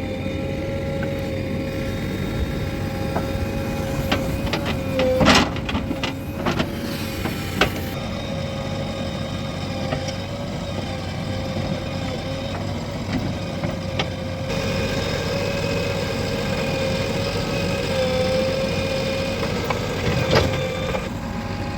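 Diesel engine of a JCB 3DX backhoe loader running steadily under a constant high whine, with a few sharp knocks and clanks, a cluster about five to seven seconds in and another near the end.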